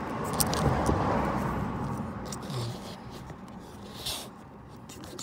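Small quarter-inch ratchet being worked in short strokes on the crank position sensor's Torx screw. It gives scattered, irregular clicks over rubbing and rustling from the hand working among the pipes, with the rubbing loudest in the first couple of seconds.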